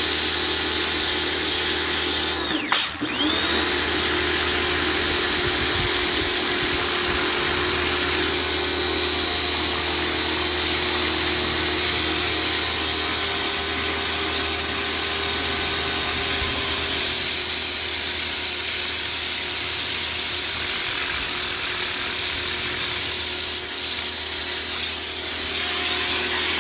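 HGTV Home 1750 PSI pressure washer running steadily and spraying water through a wide spray nozzle. About three seconds in, the motor briefly cuts out, its pitch dropping and climbing back as it restarts, and it then runs on steadily.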